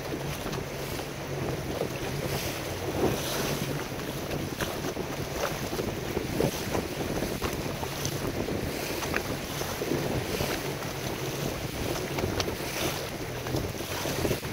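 Boat moving over choppy lake water: wind buffeting the microphone and water splashing and slapping against the hull, over a low steady engine hum.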